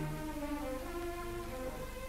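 Orchestral background music led by strings, a slow line of held notes that change pitch every half-second or so, over a low steady hum.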